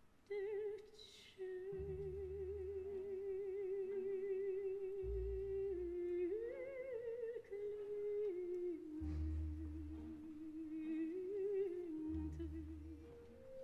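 A soprano humming a slow melody with wide vibrato: long held notes that step up about six seconds in and then drift downward. Soft low notes come and go beneath it.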